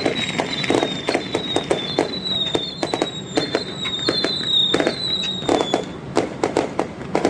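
Fireworks going off in rapid sharp cracks and bangs, several a second. A high wavering whistle sounds over them and stops about six seconds in.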